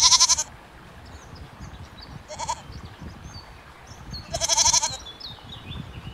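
Goats bleating: three calls, a loud one at the start, a short one about two and a half seconds in, and another loud one about four and a half seconds in.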